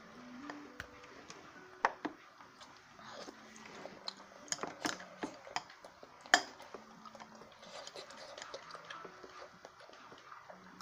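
Metal spoon and chopsticks clinking and scraping against a ceramic bowl while eating: scattered sharp clinks, a cluster of them around four to five seconds in, the loudest about two seconds in and just past six seconds.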